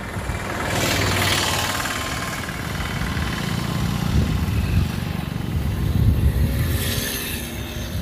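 Wind buffeting a phone microphone, an uneven low rumble, with two louder rushing gusts, about a second in and again near the end.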